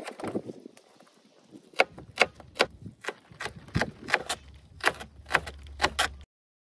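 Chef's knife chopping shallots on a plastic cutting board: a run of sharp, even knocks about three a second as the blade strikes the board, stopping abruptly near the end.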